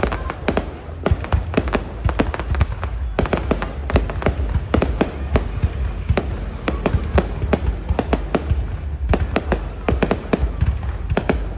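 Fireworks display: many sharp bangs and cracks in quick succession, several a second, over a constant low rumble.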